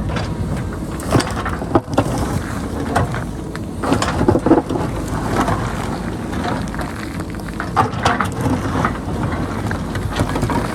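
JCB backhoe loader's diesel engine running under load as its bucket digs into rocky hillside, with irregular clatter and knocks of stones and rubble, heaviest about four seconds in.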